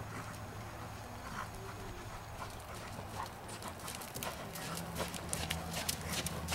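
A horse's hooves beating on arena sand, the sharp hoof clicks growing louder and closer together in the second half as the horse comes close. A steady low hum runs underneath.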